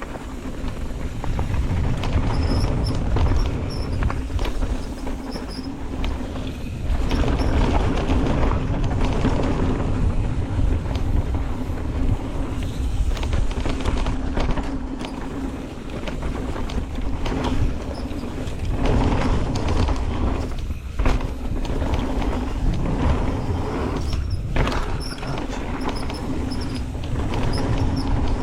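Mountain bike descending a rough dirt trail: wind buffets the microphone, and the tyres and bike rattle and knock over bumps and roots, with a steady buzz underneath.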